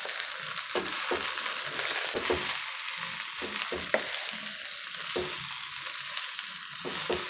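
Gongura (sorrel) leaves sizzling in hot sesame oil in a non-stick pan while being stirred and turned. A steady frying hiss runs throughout, broken by a few sharp clicks.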